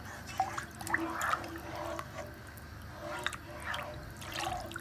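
Pot of chicken and vegetable soup bubbling at the boil, with irregular small pops and plops, while a plastic ladle stirs through the liquid.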